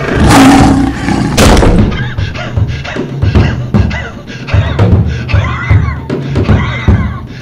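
A door shuts hard early on, with a sharp slam about a second and a half in. Then a man pants heavily, his breaths rising and falling, over drum-heavy music with steady low thuds.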